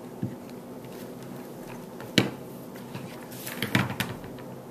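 Quiet room tone with a few light knocks from a hot glue gun being handled and set down on a cutting mat: one sharp tap about two seconds in and a short cluster of knocks near the end.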